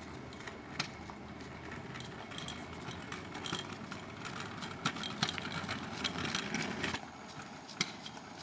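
Outdoor street noise: a steady rumble of small kick-scooter wheels rolling on rough asphalt, with scattered clicks and taps of the scooter and footsteps.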